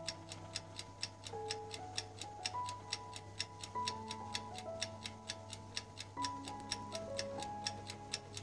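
Stopwatch ticking sound effect, about four ticks a second, counting off the light-curing time, over soft background music with slow held notes.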